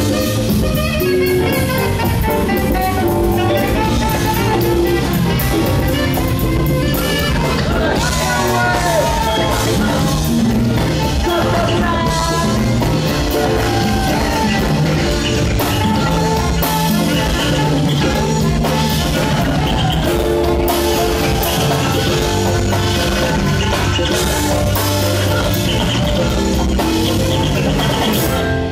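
Live band playing an upbeat groove on drum kit, electric guitars and congas, loud and steady.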